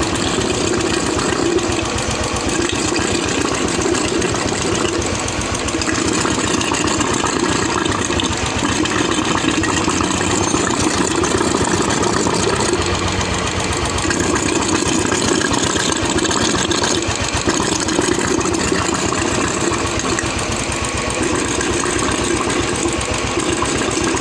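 Royal Enfield UCE Electra single-cylinder engine idling steadily with a rapid, even beat, freshly rebuilt with its cylinder head refitted.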